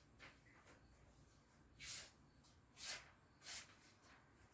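Dull knife edge dragged against a sheet of notebook paper, a few short, faint papery scrapes as the blade snags and tears rather than slicing cleanly: the edge is dull.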